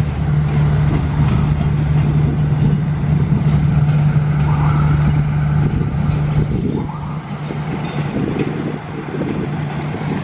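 Diesel train engine running with a steady low drone over the rumble of a train moving through the station yard.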